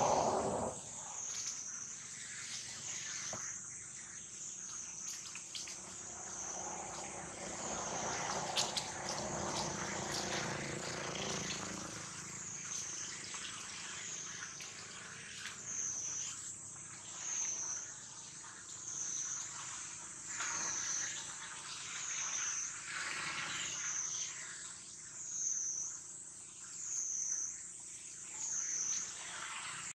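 Insects droning steadily at a high pitch. In the second half the drone swells and fades about once a second.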